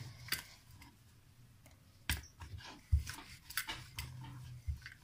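Wooden rolling pin working paratha dough on a wooden rolling board: scattered sharp clicks and a few soft knocks as the pin rolls and touches the board.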